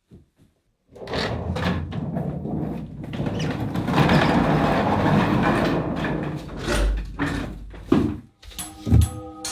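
A wheeled suitcase rolling across a floor, a steady rumbling rattle for several seconds, then a few low thuds of a door being handled near the end.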